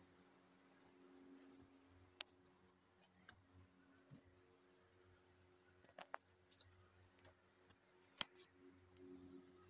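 Near silence: a faint steady hum with a few scattered sharp clicks. The loudest clicks come about two seconds in and about eight seconds in, with a quick pair of clicks around six seconds.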